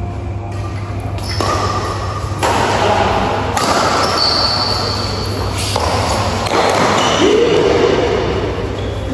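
Badminton play echoing in a large hall: racket strikes on the shuttlecock and rubber shoe soles squeaking on the court floor, with short high squeaks about four seconds in and near the end.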